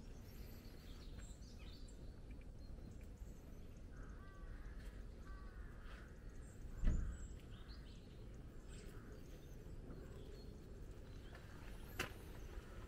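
Faint, scattered songbird chirps over a low steady rumble of outdoor background noise. A dull thump about seven seconds in, and a sharp click near the end.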